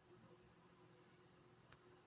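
Near silence: a faint steady low hum, with one faint click near the end.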